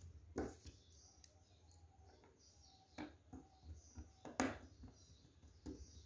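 Faint handling clicks and taps of wires and a small screwdriver working a relay module's screw terminal, a few scattered ones, the loudest about four and a half seconds in.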